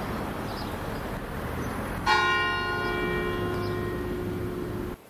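A church bell struck once about two seconds in, ringing on and slowly fading over a steady background hiss. The sound cuts off abruptly near the end.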